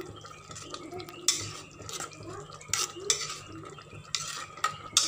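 A metal spoon stirring wet rice and jaggery syrup in an aluminium pressure cooker pot, scraping through the rice with several sharp clinks against the pot's side.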